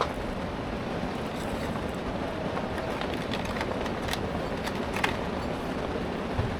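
Steady hiss of falling rain, with a few light clicks and taps of plastic toys handled close by a little past the middle.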